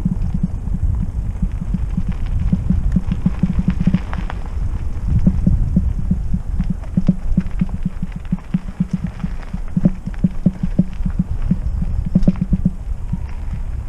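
Trek Roscoe 6 hardtail mountain bike rolling fast over a rough dirt trail on a descent: a steady low rumble with rapid, irregular thumps and rattles as the bike hits roots and rocks.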